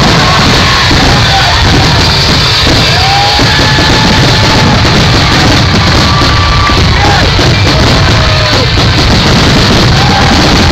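Loud music playing continuously, with a crowd yelling.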